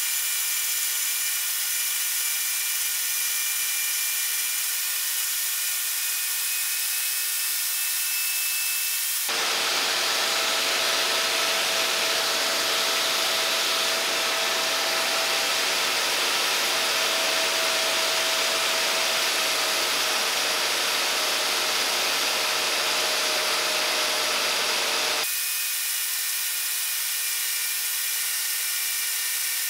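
Die grinder running at high speed, its stone grinding the steel wheel of a running roller mill to true it: a steady high whine over a grinding hiss. About nine seconds in, the sound switches to a coarser, louder grinding hiss, and it switches back at about twenty-five seconds.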